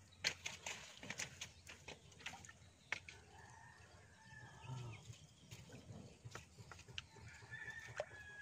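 Quiet scattered clicks and rustling, then faint animal calls in the middle and again near the end.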